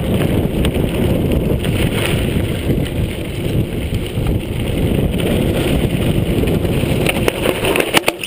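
Wind buffeting the camera's microphone as a mountain bike rolls fast down a dirt singletrack, with the tyres crunching and the frame rattling over the rough ground. A few sharp knocks come near the end.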